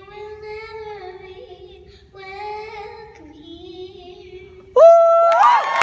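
A young girl singing a slow song into a microphone in long, held, gliding notes. Near the end a sudden loud high voice cuts in, and the audience breaks into cheering and applause.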